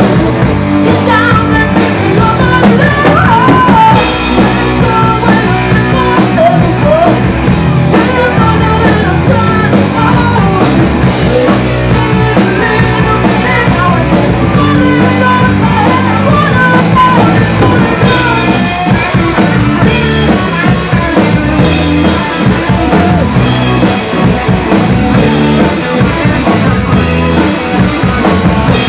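Live rock band playing, with drums and electric guitar under a woman's lead vocal sung into a handheld microphone.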